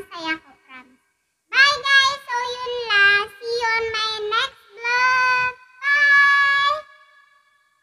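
A woman singing solo without accompaniment, in phrases of held notes; she pauses briefly about a second in, then sings on and stops shortly before the end.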